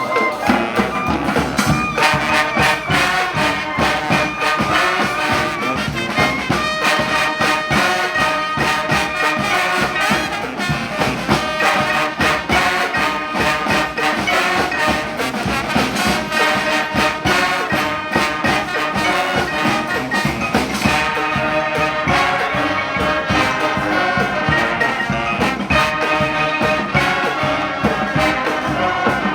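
Brass band playing a New Orleans brass-band tune loudly: massed horns over a steady beat.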